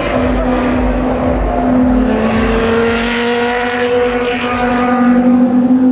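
Race car engines running at speed, holding a steady note, with a louder rush as a car goes by from about two to five seconds in.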